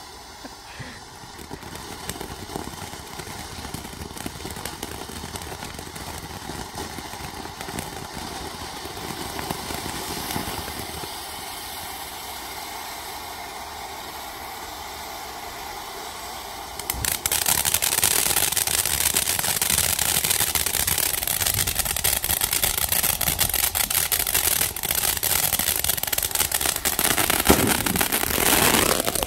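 "Elle" ground fountain firework spraying sparks with a steady hissing rush. About 17 seconds in it abruptly becomes much louder, a dense crackling spray, with a sharper pop near the end.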